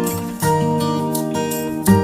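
Background music: plucked acoustic guitar chords changing about every second.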